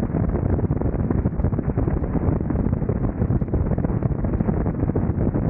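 Wind buffeting heavily on the camera's microphone at highway speed, about 65 mph, from a Kawasaki Vulcan 900 V-twin cruiser. The motorcycle's engine and tyre noise are blended into the steady, gusty rush.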